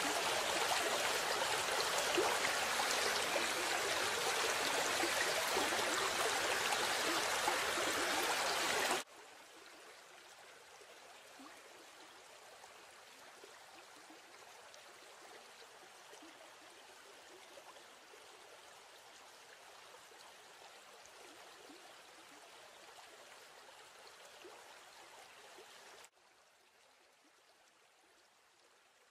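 A small waterfall splashing over rocks, which cuts off abruptly about nine seconds in to a much quieter steady flow of stream water; the sound drops quieter again near the end.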